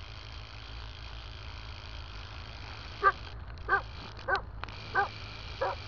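A dog barking five times at an even pace, starting about halfway through, over a steady hiss and low hum.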